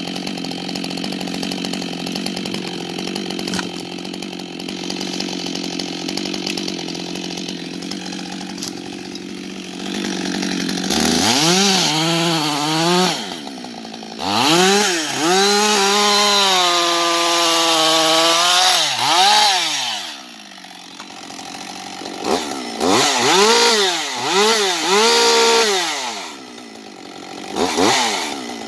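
Husqvarna 560XP two-stroke chainsaw idling steadily for about ten seconds, then revved up and held at high revs as it cuts into a thick log, its pitch sagging and recovering under load. A second run of revving and cutting follows, with short throttle blips near the end.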